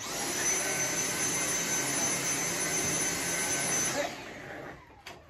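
Cordless stick vacuum cleaner switched on for a short burst: its motor runs with a steady high whine for about four seconds, then is switched off and winds down.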